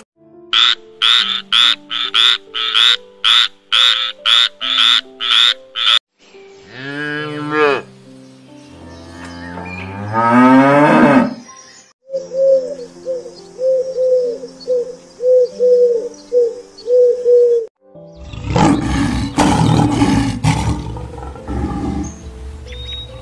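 Background music under a string of dubbed animal calls: a run of short repeated calls, then rising glides, then a repeated low call, and a lion roaring near the end.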